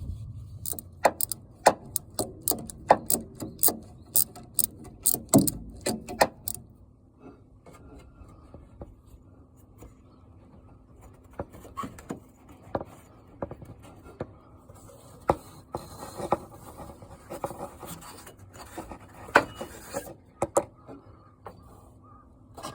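Hand tools working on a car to remove its air-conditioning belt: a quick run of sharp metallic clicks and knocks over the first six seconds or so, then quieter rubbing and scraping with scattered knocks.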